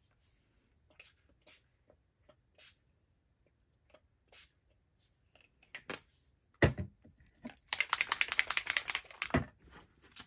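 Craft supplies being handled on a tabletop: scattered light clicks and taps, a sharp knock about two-thirds of the way in, then about two seconds of rapid crisp clicking and rattling ending in another knock.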